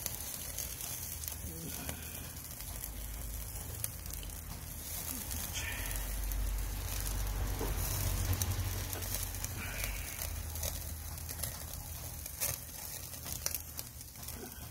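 Skewered Iberico pork rib meat sizzling on a wire grill over a charcoal fire, with scattered sharp crackles. A low rumble swells in the middle and fades.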